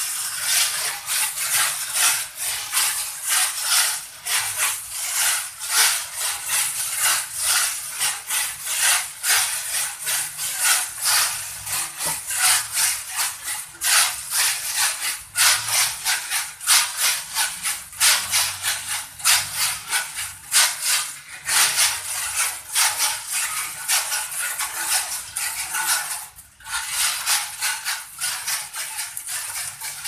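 Freshly roasted coffee beans cracking and rattling in a roaster's perforated cooling tray: a dense, continuous clatter of small clicks over a steady hiss, dipping briefly near the end.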